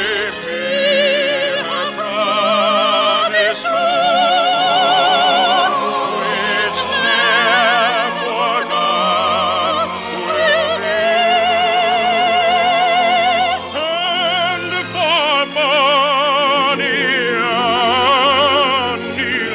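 Operatic singing with a wide, even vibrato over orchestral accompaniment, long held notes moving from pitch to pitch, heard through the limited bandwidth of an early-1950s radio broadcast recording.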